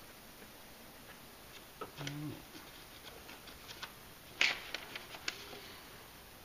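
Faint handling of a polymer gasket being pressed into a plastic air box: scattered light clicks and taps, a brief squeak about two seconds in, and a louder cluster of clicks around four and a half seconds.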